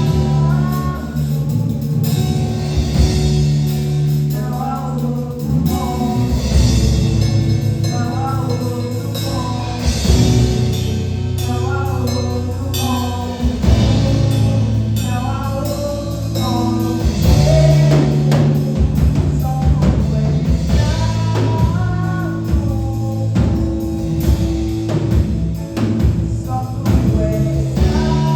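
A worship band playing a gospel worship song: sung vocal phrases over a drum kit, bass and guitar.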